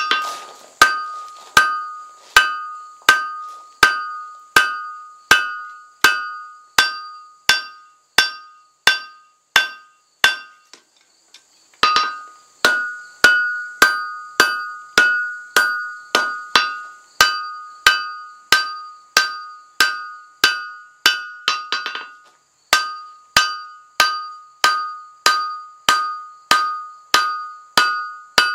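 Blacksmith's hand hammer striking a red-hot steel froe blade on an anvil in steady, evenly spaced blows, about three every two seconds, each with a bright metallic ring from the anvil. The hammering is drawing the blade out, with a short pause about a third of the way in and another briefer one about three quarters through.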